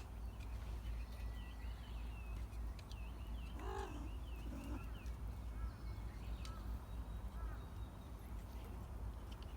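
Birds chirping and twittering, with one short pitched call about four seconds in, over a low steady rumble.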